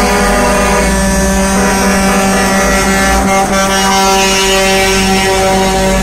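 Truck air horns sounding together in a steady, sustained chord as tractor-trailers pass, over the low rumble of their diesel engines.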